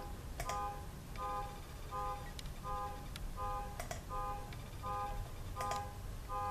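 A series of short electronic beeps, each a chord of several steady tones, repeating about every 0.7 seconds, with a few sharp clicks over it.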